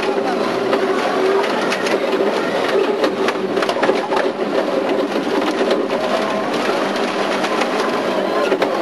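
Rally car's engine running hard, heard from inside the cabin, with gravel clattering and knocking against the car as it drives a loose gravel stage.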